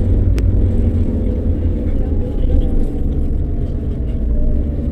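Car driving with a deep, steady road-and-engine rumble. The engine note falls slowly as the car eases off speed, and a single sharp click comes about half a second in.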